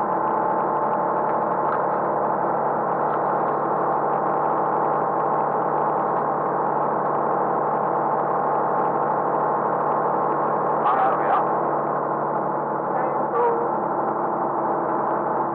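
Truck engine running at steady revs, a constant drone of many steady tones with no change in pitch.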